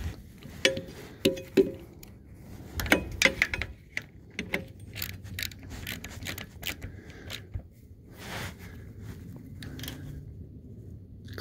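Scattered metal clicks and clinks of a wrench and hand tools tightening a motorcycle transmission drain plug.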